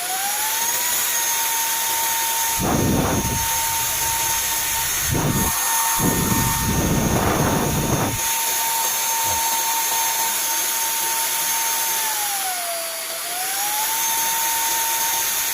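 Cordless stick vacuum cleaner's motor running on its high setting, a steady high whine that rises as it spins up in the first second, dips briefly about 13 seconds in and recovers. Several louder rushes of air noise come between about 3 and 8 seconds in. It keeps running on high without cutting out, the sign that the rebuilt lithium battery pack now holds up under load.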